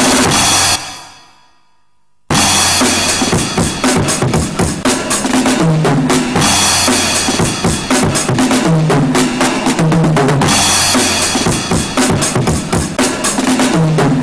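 Music soundtrack with a heavy drum-kit beat. It drops out about a second in and comes back suddenly just over a second later with dense, rapid drum hits.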